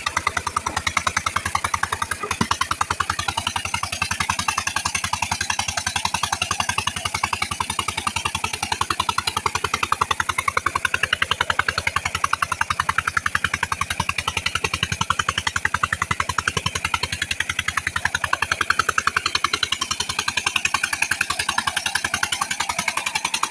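Small stationary engine with a heavy flywheel, running a tubewell pump at a steady speed with a rapid, even thumping beat, over the rush of water pouring from the outlet pipe into a concrete tank.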